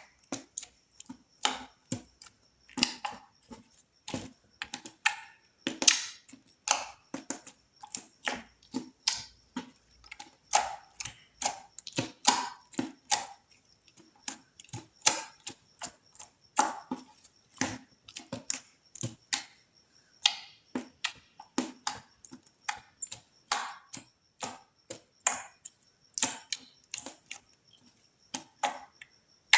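Slime being squished and worked, making an irregular string of sticky clicks and pops, about two or three a second.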